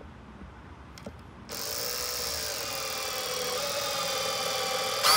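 Cordless drill driving a long cabinet screw into butcher block: the motor whine starts about a second and a half in, sags briefly in pitch under load, then runs steadily and gets much louder right at the end.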